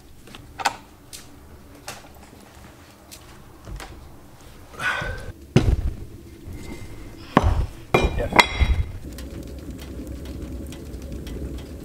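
Metal bar clamps and wooden boards knocking and clanking on a workbench as a glue-up is clamped. There are scattered sharp knocks with brief metallic ringing, loudest around the middle of the stretch.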